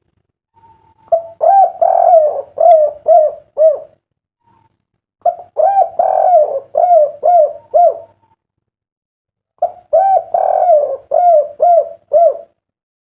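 Spotted dove (derkuku) cooing: three phrases a few seconds apart, each a quick run of short, rounded coos.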